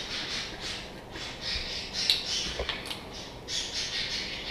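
Baileys Irish Cream poured from a bottle into a measuring spoon over a mixing bowl in several short hissing pours, with light clicks of the spoon.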